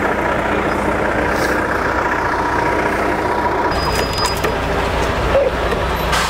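Lorry's diesel engine idling steadily close by, with a few short knocks about four seconds in.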